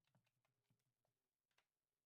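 Near silence with faint, irregular soft clicks from slime being squeezed and stretched by hand, the clearest about one and a half seconds in.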